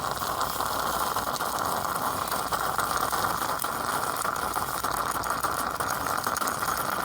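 Greca stovetop espresso maker sputtering as steam pushes the last of the water up through the spout, a steady dense crackle. This is the sign that the coffee is right about finished.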